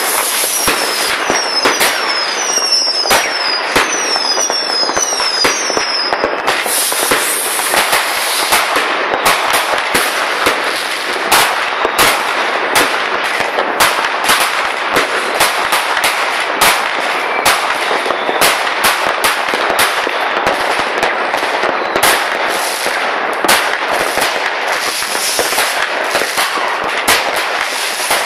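Many fireworks and firecrackers going off at once: a dense, continuous popping and banging, with a run of short falling whistles over the first six seconds.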